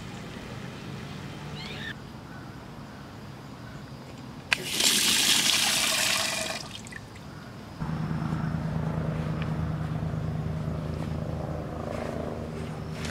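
Water from an outdoor tap pouring onto a stone drain grate, loud and splashing for about two seconds right after a sharp click. A steady low hum sets in a little later.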